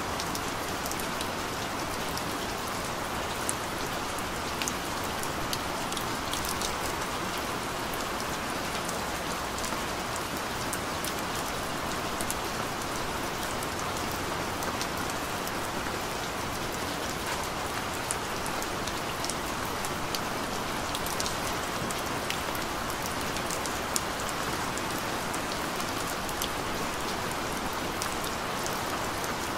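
Gentle rain falling steadily, an even hiss with many small, sharp drop ticks scattered throughout.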